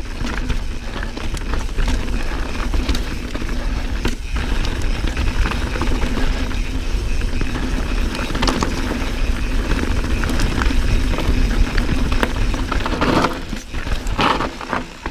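Santa Cruz Bronson mountain bike ridden down a dirt singletrack: tyres rolling over dirt and rocks under a steady low rumble of ride and wind noise, with many small clicks and rattles from the bike. The rumble drops off briefly near the end.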